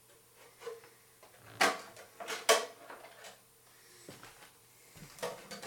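Hard plastic clacks and knocks as an RC car part is handled and test-fitted, with two sharp knocks about one and a half and two and a half seconds in and a few lighter taps around them.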